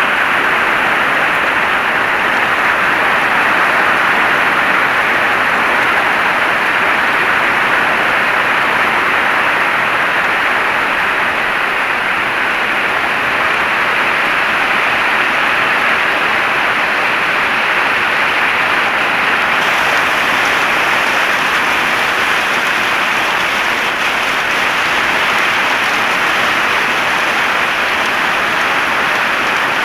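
Heavy rain falling steadily, an even, dense hiss of rain with no distinct drops standing out.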